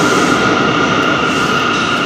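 R179 subway train pulling out of the station: a rumble with a steady high-pitched whine held above it, slowly fading.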